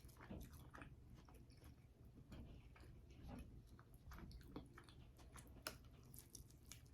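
A person chewing a mouthful of pizza close to the microphone: faint, irregular mouth clicks and smacks, a few a second.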